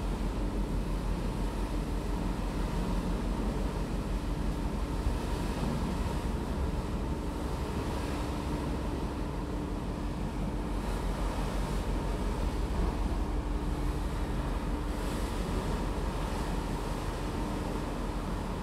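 Passenger ferry underway: a steady low engine rumble with a constant hum, under the rush of sea water and wind along the ship.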